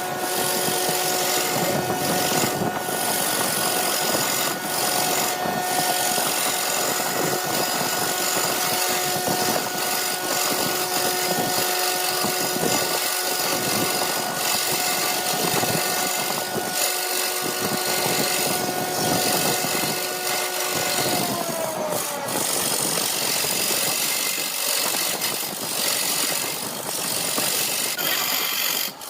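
Wood lathe running with a steady whine under a hissing, scraping cut as a blank of epoxy resin and playing cards is turned. About three-quarters of the way through, the whine falls in pitch and dies away as the lathe slows, while the scratchy noise goes on.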